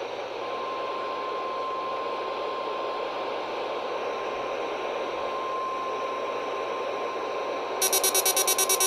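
NOAA Weather Radio's 1050 Hz warning alarm tone, one steady tone held for about nine seconds, coming through heavy radio static from very poor reception during the weekly test. About a second before the end a loud, rapidly pulsing electronic buzz, several pulses a second, cuts in over it.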